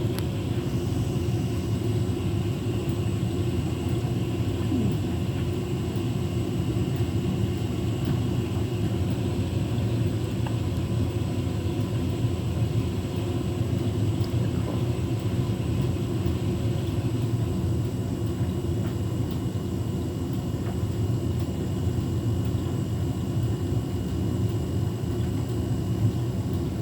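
Beko WTK104121W washing machine filling its drum with water: a steady rushing rumble.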